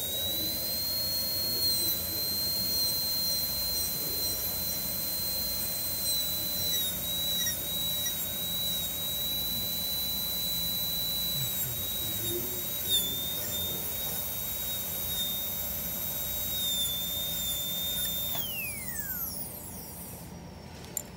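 High-speed dental air-turbine handpiece with a diamond bur running with a steady high-pitched whine while smoothing an abutment tooth preparation on a typodont tooth. Near the end the whine glides down and stops as the turbine spins down.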